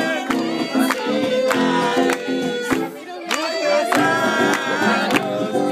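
Live band music playing with a steady beat, melody notes held over it.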